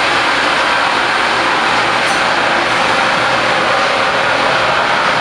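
Steady, loud rushing noise inside the machine room of a Siemens Taurus class 1216 electric locomotive, from its running cooling blowers.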